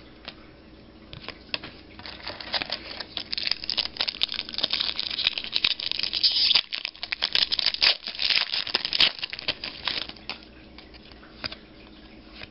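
Foil wrapper of a basketball card pack crinkling and crackling as it is torn open and peeled back. It is a dense run of crackles that starts about a second in and stops near the end, loudest in the middle.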